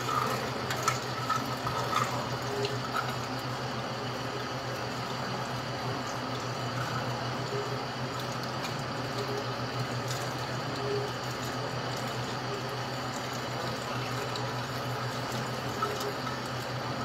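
Tap water running steadily through a mesh strainer into a stainless steel sink, with a steady low hum underneath.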